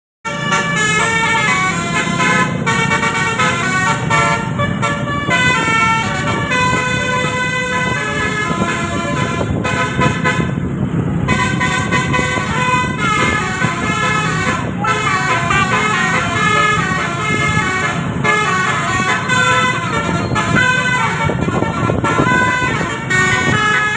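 Bus basuri (telolet) musical horn playing a quick melody of short steady notes that step up and down in pitch. A low rumble sits underneath.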